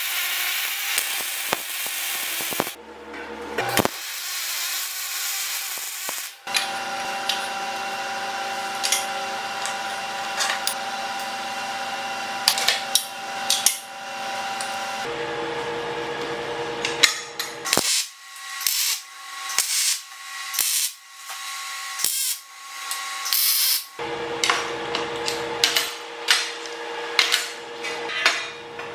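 MIG welding arc crackling and hissing for the first few seconds, then stopping. After that, steel parts and locking clamps are set down and clamped on a perforated steel welding table, giving repeated sharp metal clanks and knocks that come thick and fast in the last third.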